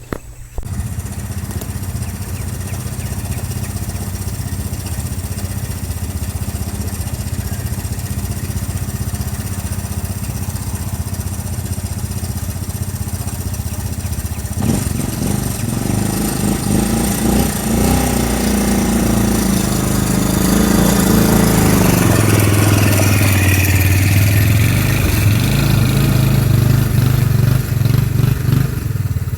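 Kawasaki 300 4x4 ATV's single-cylinder engine running at a steady low speed. About halfway through it revs up, with the pitch rising and falling, and it runs louder under load for the rest of the time.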